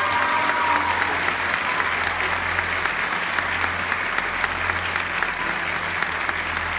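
Audience in an auditorium applauding steadily, many hands clapping at once.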